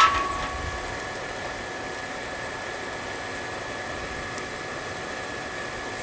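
Electric blower fan feeding air to a homemade forge, running with a steady hiss and a constant high whine. At the very start a metal clank rings out briefly and fades.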